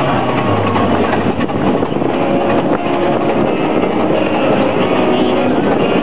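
Railway locomotive turntable rotating with a boxcar and riders aboard: the bridge's drive and wheels on the rail running steadily.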